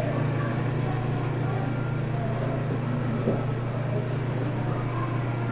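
Steady low hum, with a faint murmur of distant voices above it.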